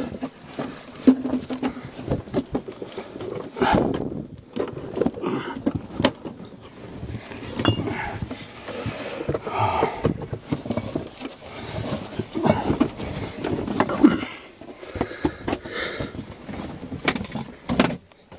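Loose bricks knocking and clinking against each other as someone crawls over a pile of rubble, with irregular scraping and shuffling between the knocks.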